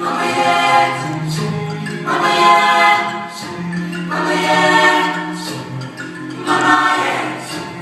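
Gospel choir singing in harmony, in phrases that swell and fade about every two seconds over held low bass notes.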